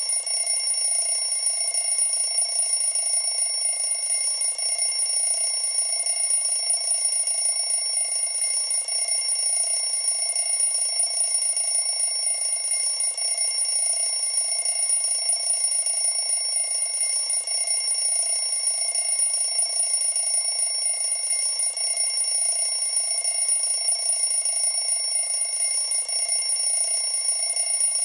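Countdown timer's finishing alarm ringing continuously at an even level, signalling that the countdown has run out.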